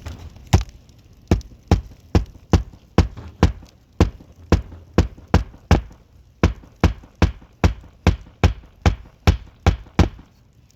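Hammer driving roofing nails into a shingle: a steady run of sharp strikes, about two or three a second, with a brief pause about six seconds in.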